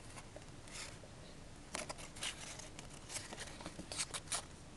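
Paper rustling and crinkling in short, soft bursts as fingers fold a small piece of origami paper and push one side of it inward. Several light crackles, the loudest near the end.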